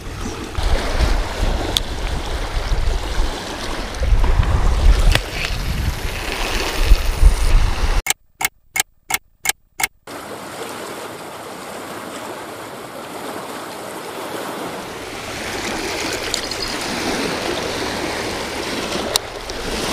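Lake waves washing onto a rocky shore, with wind rumbling on the microphone. About eight seconds in, a quick run of about six clock-tick sound effects over two seconds, then steady wave wash.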